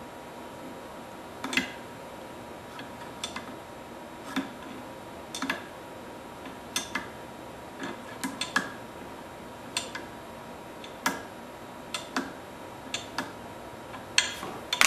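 Sharp metallic clicks at irregular intervals, about one a second. They come from a screwdriver tip working the set screw on the steel quick-change tool adapter of a CNC router spindle.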